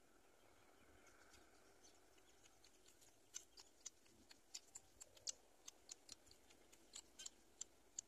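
Faint, irregular sharp clicks and ticks, several a second, starting about three seconds in over near silence.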